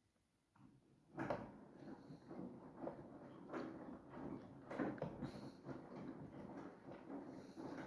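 Samsung washing machine running, heard faintly: its drum turning with irregular soft knocks and rustling, starting about a second in after a moment of silence.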